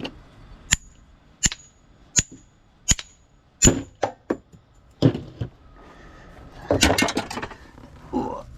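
Small pieces of scrap metal clinking: five evenly spaced ringing metal strikes about three-quarters of a second apart, then a looser clatter of metal pieces in the second half.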